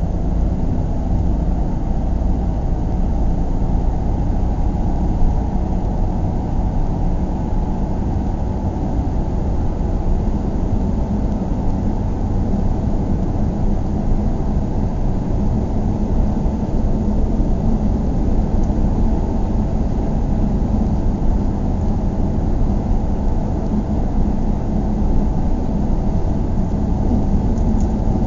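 Car driving, heard from inside the cabin: a steady low rumble of road and engine noise that holds even throughout.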